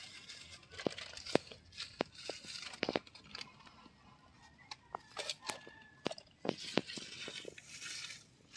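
Dry grass and roots being pulled and torn out of hard, dry soil by gloved hands: irregular crunching and crackling with sharp snaps.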